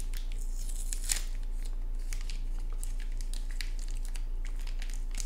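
A small plastic packet crinkling and rustling as it is opened and a small circuit board is slid out, with scattered crackles, one louder about a second in. A steady low hum runs underneath.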